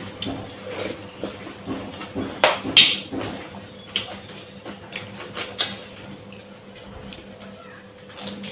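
Close-up eating sounds of people eating by hand: chewing and lip smacks in short, irregular clicks, with a louder burst of chewing about three seconds in and occasional light contact with plates.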